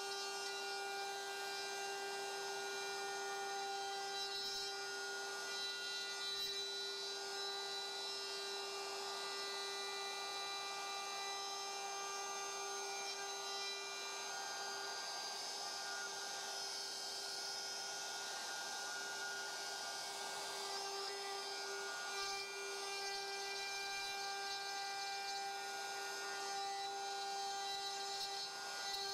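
DeWALT DCW600 cordless compact router in a plunge base, running at full speed with its bit cutting into wood: a steady high-pitched whine with a rough cutting hiss that grows heavier around the middle.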